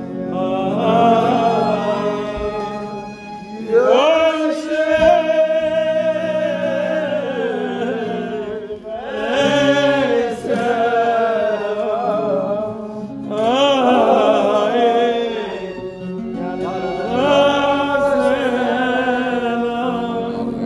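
Voices singing together at a kumzits: a slow, drawn-out melody sung in phrases of a few seconds each, with low sustained tones underneath.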